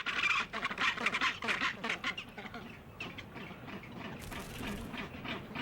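A pair of Snares penguins calling together in their courtship display after pairing, a rapid pulsed braying. The calls are loudest for the first couple of seconds, then go on more faintly.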